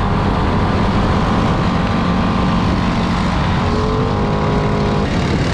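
ATV engine running hard under load through mud. Its pitch holds steady, climbs slightly a little past halfway, then drops off near the end.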